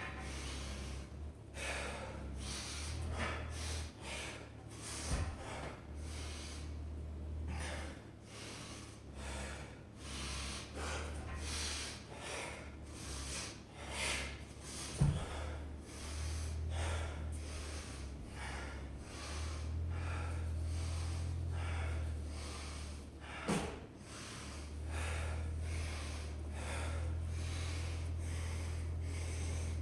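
A person breathing hard, with breath after breath in quick succession, over a steady low hum. There are a few short thumps, the sharpest about halfway through.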